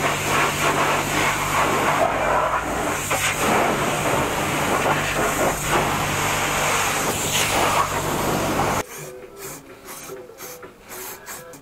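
High-pressure washer lance spraying water against a car's underside: a loud, steady hiss of spray over a low, steady hum. It cuts off abruptly about nine seconds in, leaving quieter, irregular rasping clicks.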